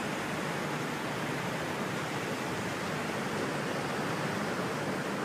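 Steady rushing of water churned up by a large ship's propeller wash, an even hiss with no crashes or knocks.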